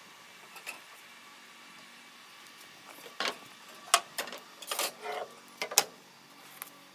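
Metal hand tools handled on a plywood truck-bed floor: a handful of sharp clicks and light clatters, bunched from about three seconds in to near the end.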